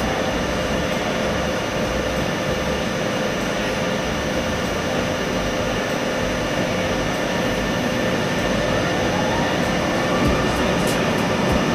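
A machine tool (milling machine or lathe) running steadily, its motor giving a constant hum under a dense cutting and running noise, with a faint rise in pitch near the end.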